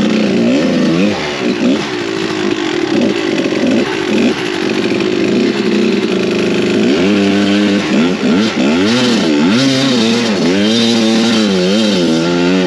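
Kawasaki KDX200's two-stroke single-cylinder engine revving as the dirt bike is ridden, its pitch rising and falling over and over with the throttle. It swings up and down quickly in the last few seconds.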